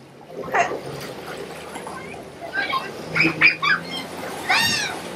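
Children squealing and shrieking in the pool several times, the loudest about four and a half seconds in. Under them is the steady low hum of a jet ski running in the pool, its jet churning the water.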